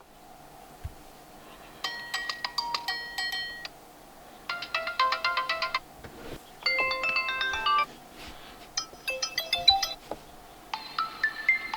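Infinix Smart 7 smartphone playing short previews of its built-in ringtones one after another. There are five brief electronic chime melodies, each lasting a second or so, with short pauses between them.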